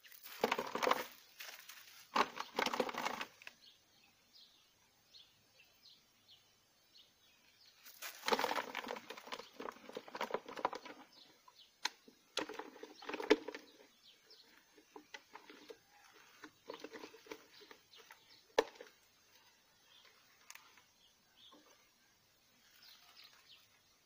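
A small trapped bird fluttering its wings against the inside of a plastic PET-bottle trap, with the bottle rattling and crinkling, in several bursts of a few seconds each with sharp clicks between.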